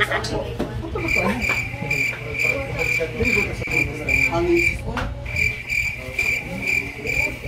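Cricket chirping: an even run of short, high chirps, about three or four a second, breaking off briefly about five seconds in.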